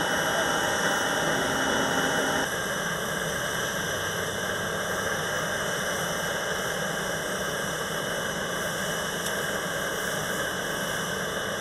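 Steady turbine whine and hum from a parked business jet, several high tones held over a low rumble. It drops a little in level about two and a half seconds in.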